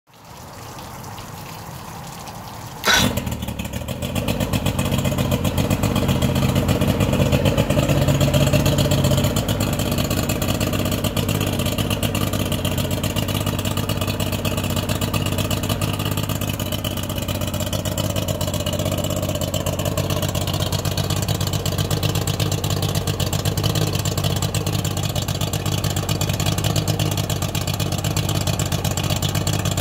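2001 Mercury 50 hp two-stroke outboard starting about three seconds in with a sharp bang, after a few seconds of hiss. It runs a little faster for several seconds after catching, then settles into a steady idle.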